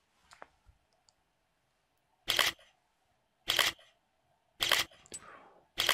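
A camera shutter clicking four times, about a second apart, as photos are taken.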